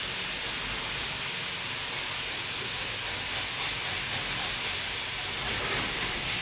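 Steady hiss over a low rumble, with no distinct knock or clatter.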